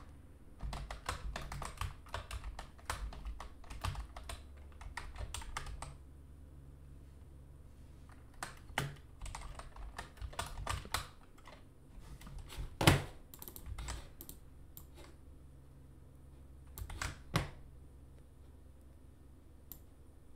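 Typing on a computer keyboard: a quick, dense run of keystrokes for the first several seconds, then slower, scattered keys with a few sharper, louder key hits later on.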